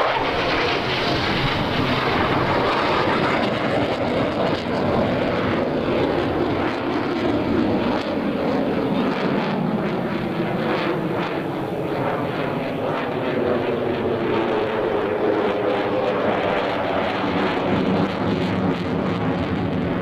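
F-16 Fighting Falcon jet engine at high power during an aerobatic display: loud, steady jet noise with a hollow tone that sweeps slowly up and down as the fighter moves across the sky.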